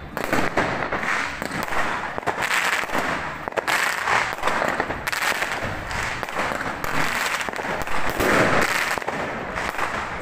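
Fireworks going off in quick succession: many overlapping bangs and crackles with no pause.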